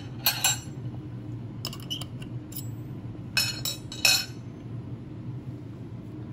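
Dishes and cutlery clinking in a few short clusters as a meal is set out, over a steady low hum.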